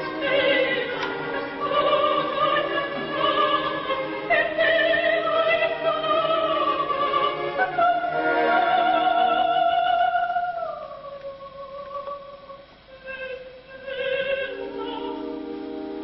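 Live opera: a soprano sings a bel canto line over orchestra and chorus. About halfway through she holds a long high note, which then drops away into a softer passage, and sustained orchestral chords come in near the end.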